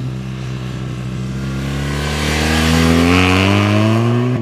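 BMW R 1200 RS boxer twin engine pulling hard as the motorcycle rides past, its pitch climbing steadily under acceleration from about a second and a half in, loudest a little past the middle.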